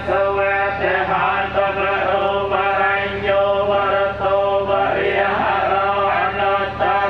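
Group of Buddhist monks chanting together through microphones: a steady drone of low male voices holding long, slightly wavering notes.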